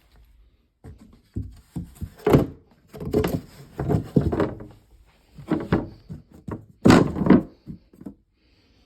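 Wooden furniture panels knocking and thudding as they are handled and fitted together, a run of irregular thunks with two louder knocks, one a couple of seconds in and one near the end.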